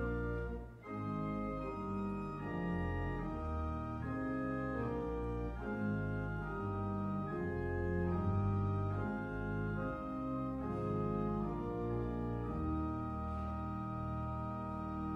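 Organ playing a hymn tune in held chords that move from one to the next, with a brief break about a second in.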